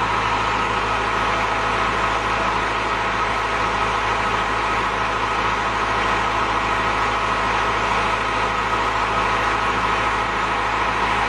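An engine running steadily at constant speed, a continuous drone with no change in pitch or level.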